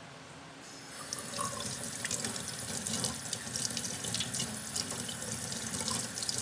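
Kitchen tap turned on about a second in, then water running steadily over a pig's heart held in the hands and splashing into a stainless steel sink, with spatters and drips. The meat is being rinsed of its blood.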